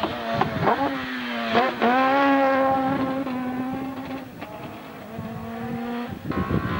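Race car engine at high revs on a hill climb. Its pitch drops and jumps back up several times in the first two seconds as it changes gear through a hairpin, then holds a steady high note. The note stops abruptly about six seconds in.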